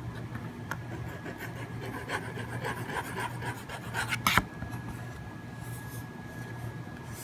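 Fine-tip pen scratching across paper in short strokes as it is test-written, with one sharp click a little after four seconds in.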